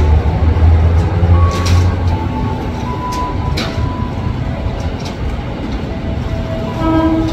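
KRL Commuter Line JR 205 series electric train approaching, with a heavy low rumble for the first two seconds that eases to steady running noise. A few sharp clicks sound along the way, and a short pitched tone comes near the end.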